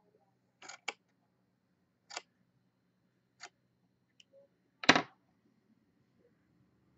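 Small scissors snipping through a strip of mohair doll hair, a few short, sharp snips spread over the first four seconds. About five seconds in, the scissors are set down on a plastic cutting mat with a knock, the loudest sound.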